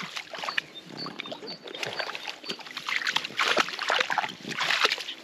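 French bulldogs snuffling and splashing with their snouts in shallow lake-edge water among the grass: irregular wet sniffs, snorts and splashes.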